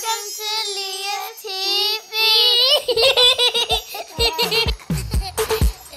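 A small child's high-pitched voice giggling and calling out in wavering notes. About three seconds in, an electronic beat comes in, with deep falling kick drums and short chopped vocal sounds.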